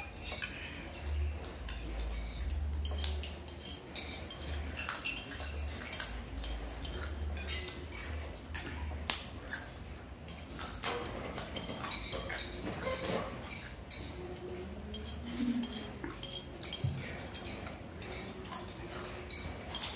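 Spoons clinking and scraping on plates and bowls during a meal, scattered light clicks of tableware with one sharper clink about nine seconds in.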